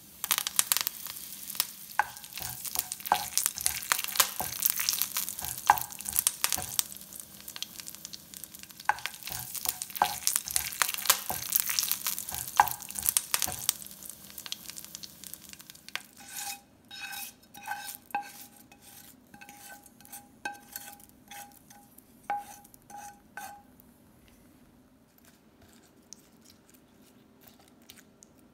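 Curry leaves, cumin seeds and dried red chillies spluttering and crackling in hot oil in a nonstick frying pan, stirred with a wooden spatula; the crackle is dense and loud and dies away about halfway through. After that comes a run of light clinks of kitchen utensils, each with a short ringing tone.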